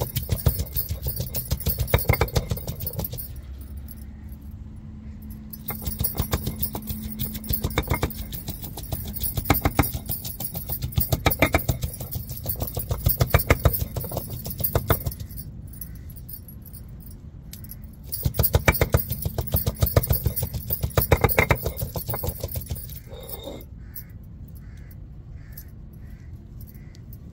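Ginger and garlic being ground to paste on an ammi, a stone roller worked back and forth over a stone slab, with the glass bangles on the grinder's wrists jangling at every stroke. The grinding comes in several long spells with short pauses and stops a few seconds before the end.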